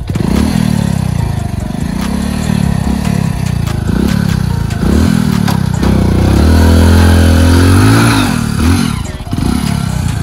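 Hero Splendor motorcycle engine revved in repeated short bursts, about once a second, then held high for a couple of seconds before dropping back. It is under load with the bike stuck, the rider trying to drive it free.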